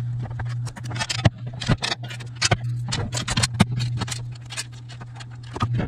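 Quick, irregular clicks and clatters of fittings and hand tools being handled while pond air diffusers are assembled, over a steady low hum.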